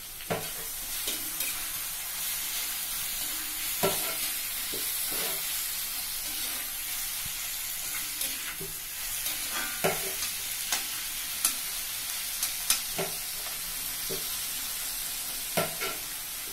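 Chopped onions sizzling in hot oil in a kadai while a perforated metal spatula stirs them, a steady hiss broken by irregular sharp clicks and scrapes of the spatula against the pan.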